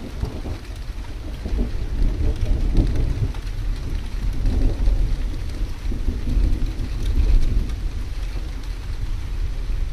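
Steady rain of a thunderstorm, with fine drop ticks over a low rumble that swells and eases.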